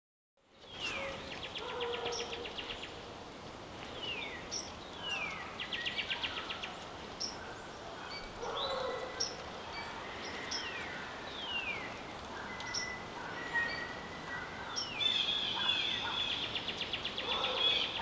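Backyard songbirds singing: repeated downward-slurred whistles and fast, even trills, several birds overlapping, with lower calls now and then. The loudest trill comes near the end.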